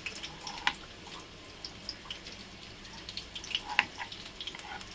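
Hot oil crackling and popping irregularly as batter-dipped green chilli pakoras deep-fry in a pan. Two sharper clicks stand out, about a second in and near the end.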